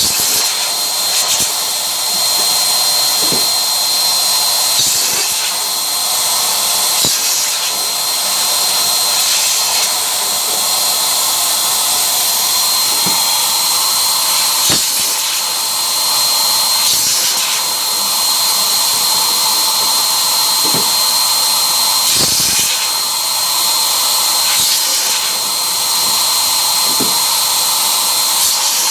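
Electric balloon inflator running steadily: a small motor-driven blower giving a continuous rushing hiss with a steady high whine. A few faint clicks are scattered through it.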